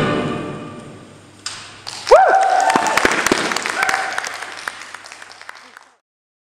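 Recorded orchestral stage music dies away, then an audience claps and cheers, with a loud whoop about two seconds in and a shorter one later. The applause fades and then cuts off abruptly near the end.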